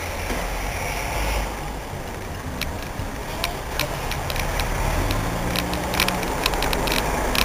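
Street traffic heard from a bicycle: engines of the cars and the bus running close by in slow traffic, a steady low rumble. From about two and a half seconds in, sharp irregular clicks and rattles cut through.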